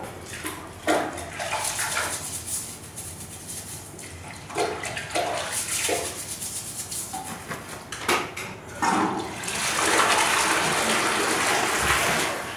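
Toilet brush scrubbing and knocking against a toilet bowl in short strokes, then the toilet flushing, a steady rush of water for about three seconds near the end.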